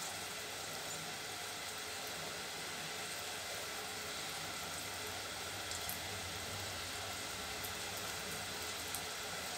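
Small balls of rice and urad dal batter deep-frying in hot oil: a steady sizzle of bubbling oil, with a couple of faint pops.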